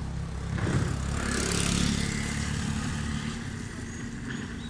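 A motor scooter passing on a wet street: the hiss of its tyres swells to a peak around a second and a half in and then fades, over a steady low engine hum.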